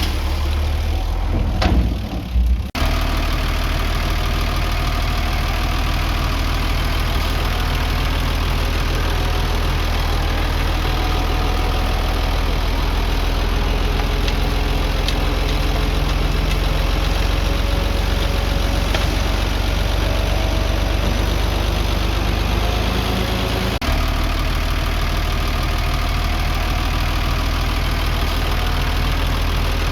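Diesel engine of earthmoving machinery, a mini bulldozer or dump truck, running steadily with a low drone. The sound is uneven for the first couple of seconds and breaks briefly about 24 seconds in.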